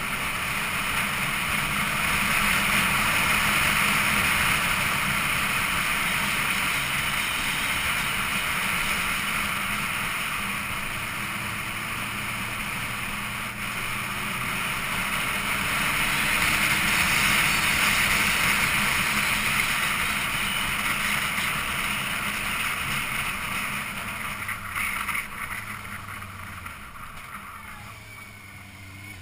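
Wind rushing over the microphone of a camera on a moving motorcycle, with the motorcycle engine's low hum underneath, swelling and easing with road speed. It quietens over the last few seconds as the bike slows for a hairpin bend.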